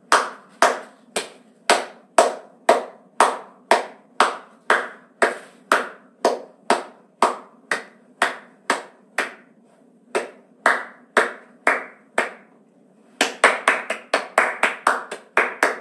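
One person clapping hands in a steady beat, about two claps a second, keeping time for a song. After a short pause near the end, the claps turn into a quicker burst of applause.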